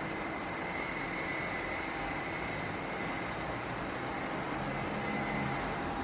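Arno Silence Force table fan running steadily at its lowest speed, a soft rush of air, with steady noise from outside mixed in.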